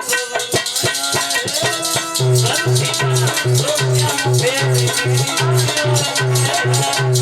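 Instrumental music interlude: a fast, steady percussion rhythm of shaker and cymbal strikes over a repeating low drum beat, with a melodic instrument playing a repeating phrase.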